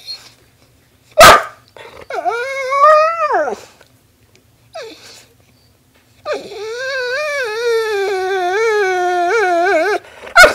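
A dog "talking" back to its owner in howling whines: a sharp short sound about a second in, then a brief whine that rises and falls, and after a pause a long wavering howl-whine of about four seconds that sags in pitch and warbles near the end.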